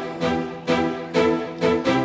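Background music: pitched chords struck in a steady pulse about twice a second, with string-like tones.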